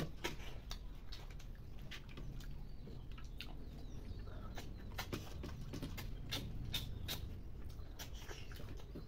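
Close-up eating sounds: irregular small clicks and smacks, several a second, of mouths chewing snail meat and fingers picking at a steel plate, over a steady low hum.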